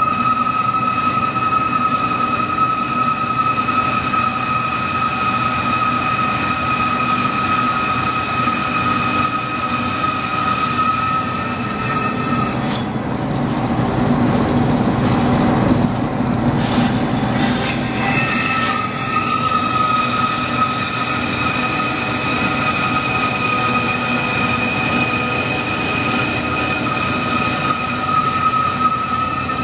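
DoAll vertical bandsaw cutting a thick metal disc, the blade giving a steady high squeal while in the cut. About twelve seconds in the squeal stops for several seconds while the saw runs free with the part out of the cut, then the squeal resumes as the cut continues.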